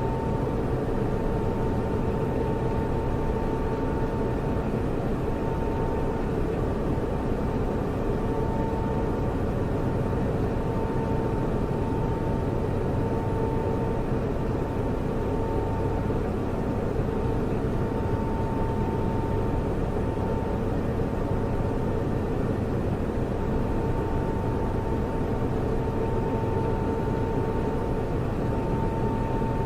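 Computer server running: a steady whirring drone of cooling fans with a constant hum riding on it, swelling and easing slightly every few seconds.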